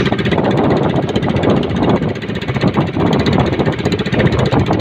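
Engine of a small motorized outrigger boat running steadily while under way, with a fast, even beat.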